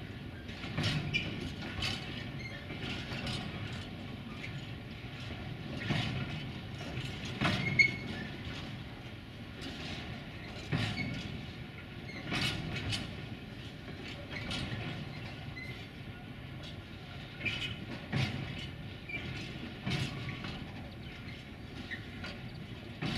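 Empty flat freight wagons rolling slowly past, their wheels clacking over the rail joints with an irregular knock every second or two over a steady rolling rumble. The sharpest clank comes about eight seconds in.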